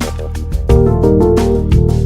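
Background music with a steady beat: electronic drums over held bass and synth notes.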